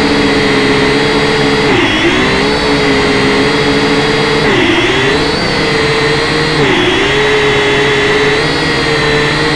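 Quadcopter's electric motors and propellers whining steadily, heard up close from the craft itself, the pitch dipping briefly three times as the speed changes.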